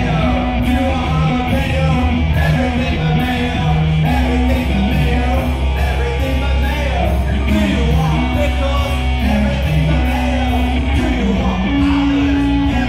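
Loud rock music with singing and shouted vocals over a bass line that moves in held notes, with steady drums and cymbals.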